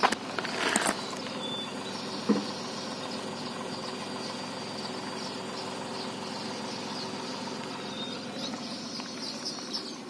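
Tata Tiago engine idling steadily, heard from outside near the engine bay and front wheel, shortly after a cold start with the car not run since the day before, which makes it a little louder at first. A few brief knocks in the first couple of seconds.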